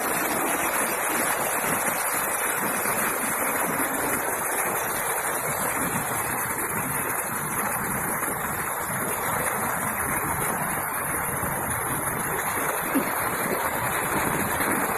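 Heavy rain falling with muddy floodwater rushing along the ground: a steady, unbroken rush of water.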